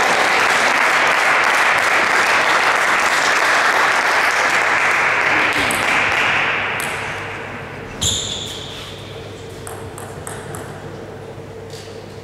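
Spectators applauding between points, dying away about six seconds in. About eight seconds in comes one sharp, ringing click of a table tennis ball, followed by a few lighter ball clicks.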